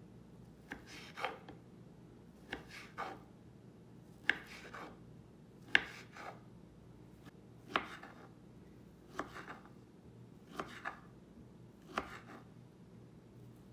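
Kitchen knife slicing a block of boiled tempeh into thin strips on a wooden cutting board: one cut every second or so, each a short scrape ending in a knock of the blade on the board.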